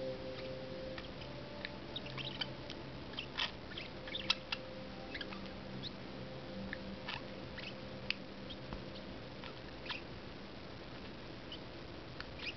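Pet parakeets making soft, high chirps and clicks, short and scattered at irregular intervals, over a faint steady hum.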